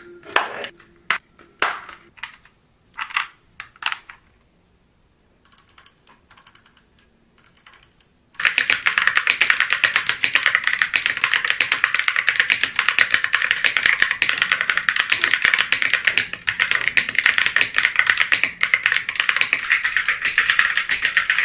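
GK GAMAKAY LK75 mechanical keyboard with Venus switches being typed on: a few separate key presses at first, then fast, continuous typing from about eight seconds in.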